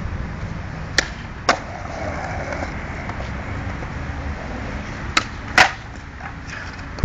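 Skateboard wheels rolling on concrete, with sharp board clacks in two pairs: one about a second in and another a little after five seconds.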